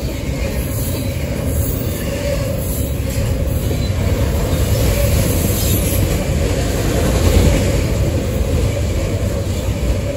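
Norfolk Southern freight train's double-stack container cars and autorack cars rolling past close to the track, a loud, steady rumble of steel wheels on rail.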